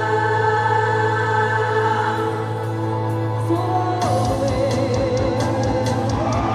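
Music with singing: a long held chord over a steady bass note, then a regular beat comes in about four seconds in.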